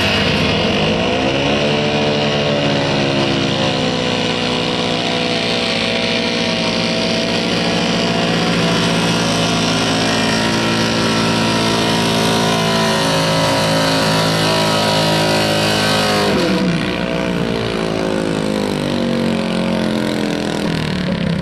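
Square-body Chevrolet pickup's engine working hard under load as it drags a weight-transfer sled. The revs climb over the first couple of seconds and hold high, then drop off sharply about three-quarters of the way through and run lower after.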